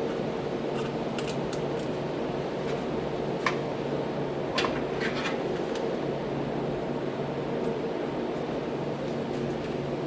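Cable connectors and plugs clicking and clacking as cables are handled and plugged into a KVM switch and its devices. There are a dozen or so sharp clicks, the loudest about three and a half and four and a half seconds in, over a steady mechanical hum.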